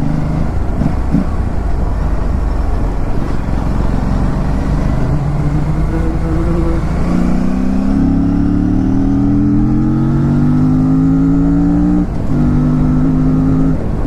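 Aprilia RS 457's parallel-twin engine pulling the motorcycle along at road speed under heavy low rumble. About halfway through the engine note climbs steadily as it accelerates, dips briefly near the end, then holds level.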